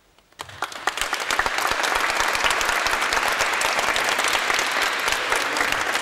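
Audience applauding: after a brief hush the clapping starts about half a second in, swells within a second to dense, steady applause, and carries on.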